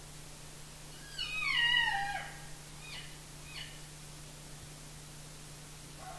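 Elk cow and calf mews: one falling, nasal mew lasting about a second, then two short chirps.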